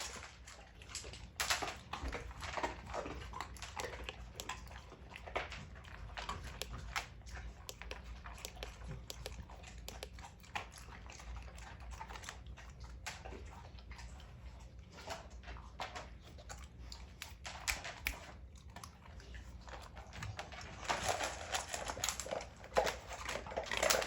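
American bully dogs eating, with many short crunching and chewing clicks from their mouths and bowls, busiest near the end. A steady low hum runs underneath.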